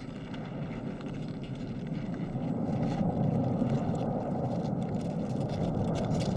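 A vehicle's rumbling noise, swelling over about three seconds and then holding loud.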